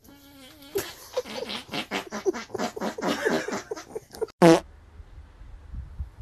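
A dog's fart heard as a short low buzz, followed by a few seconds of rapid pulsing sounds, about four or five a second. One loud short cry comes about four and a half seconds in.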